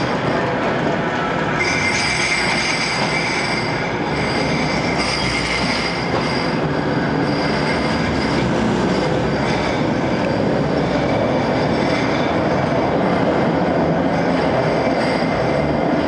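A Bombardier M5000 Metrolink tram running past close by, with steady rail running noise and high-pitched wheel squeal on the rails. The squeal is strongest a couple of seconds in, then eases as the tram moves away.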